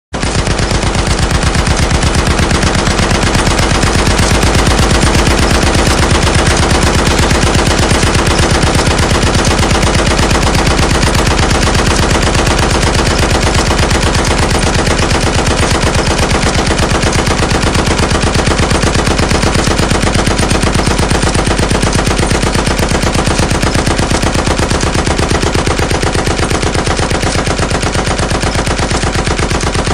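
Heavy machine gun firing one continuous rapid burst of automatic fire, the shots coming in an unbroken fast train without a pause.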